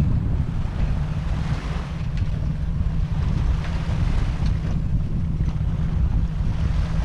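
Wind rumbling on the microphone, with small lake waves washing and lapping on a sandy shore.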